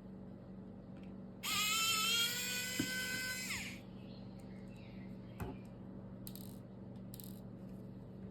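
A small electric motor whines for about two seconds, rising slightly in pitch, over a steady low hum, with a couple of faint clicks afterwards.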